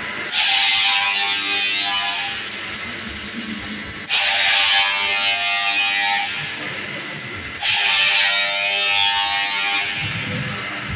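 Grinding disc on a KUKA KR120 robot arm grinding a metal workpiece in three passes, each cutting in suddenly with a loud hiss and whine and easing off over a couple of seconds.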